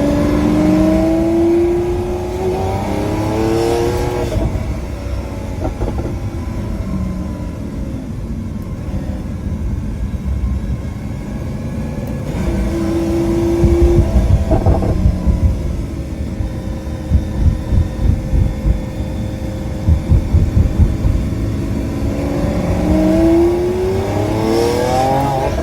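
Lamborghini engine pulling hard twice, its pitch rising with the revs near the start and again near the end, heard from the cabin with the rear window open. In between it runs at lower revs with an uneven low rumble.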